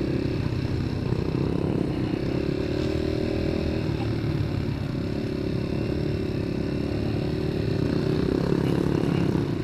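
Yamaha TT-R150 dirt bike's four-stroke single-cylinder engine running steadily, heard from on the bike, picking up a little near the end.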